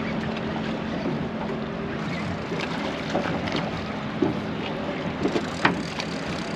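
Wind and water noise on a fishing boat at sea, with a low steady hum that stops about two seconds in and a few short clicks and knocks near the end.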